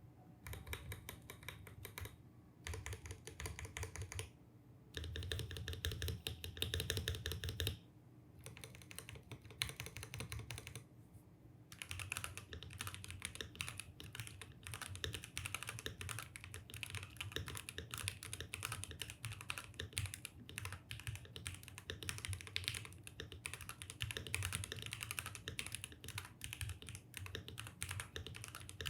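Mechanical keyboard being typed on rapidly, a dense stream of key clacks broken by short pauses about 5, 8 and 11 seconds in.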